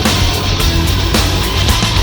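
Loud heavy rock music with a driving beat.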